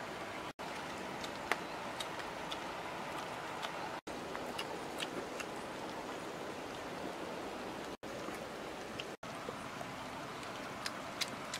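Several dogs eating boiled eggs from a tray, with scattered sharp chewing clicks over a steady background hiss. The sound drops out for an instant four times.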